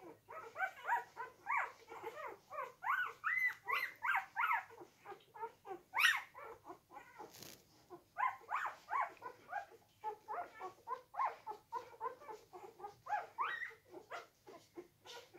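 Four-day-old golden retriever puppies squeaking and whimpering while they nurse, many short, high calls overlapping several times a second. A sharp click about six seconds in.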